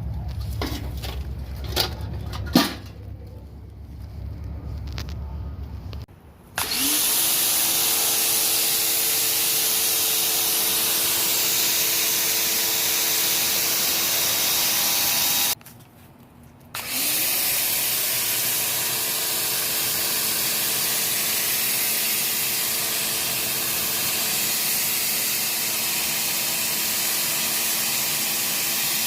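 Pressure washer spraying: a steady loud hiss of the water jet over the hum of the pump motor, which winds up when the trigger is pulled about six seconds in. The trigger is released for about a second near the middle, then the spray and motor start again. A few knocks and clicks come before the spray starts.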